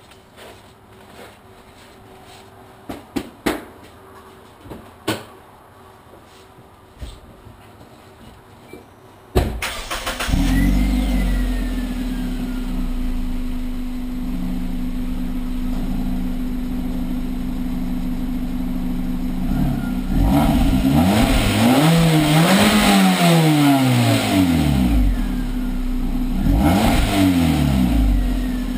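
Hyundai Elantra four-cylinder engine, with a test pipe in place of the second catalytic converter on an otherwise stock exhaust. After a few faint clicks and a sharp thump, it starts about ten seconds in and idles steadily. It is then revved in a few quick blips and once more near the end.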